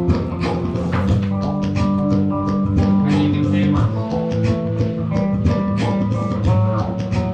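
Live band playing an instrumental passage: held chords over a steady drum beat.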